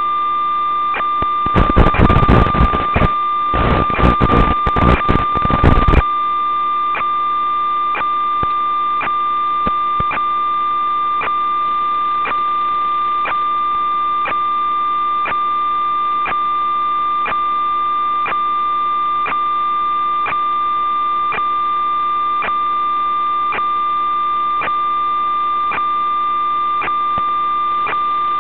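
Electronic audio from an analog 5.8 GHz FPV video link: a steady high-pitched tone with faint ticks about twice a second, broken by loud crackling static for about four seconds near the start.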